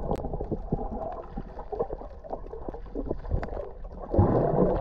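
Muffled underwater sound of swimmers moving through the water, heard from a camera below the surface: a dull sloshing wash with scattered small clicks and crackles. It becomes louder and fuller about four seconds in as a swimmer comes close.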